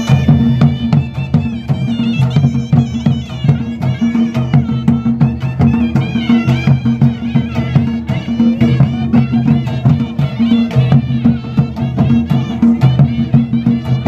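Himachali Pahadi folk music for a nati dance, played live: drums beat a steady, even rhythm under a high, wavering melody line.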